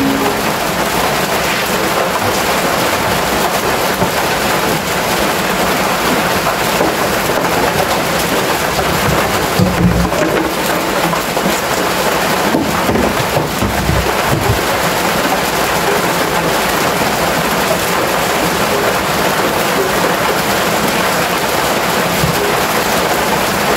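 Steady heavy rain drumming on a corrugated metal roof, an even loud hiss that does not let up.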